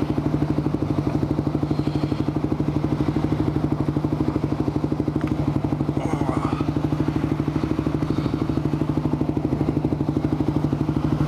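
Honda TRX400EX ATV's single-cylinder four-stroke engine idling steadily with an even, rapid pulse.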